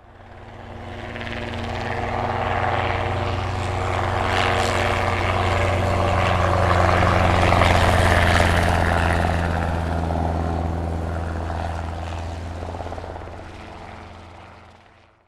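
Helicopter flying past: its steady low engine and rotor sound grows louder over the first several seconds, peaks about halfway, and fades away to silence near the end.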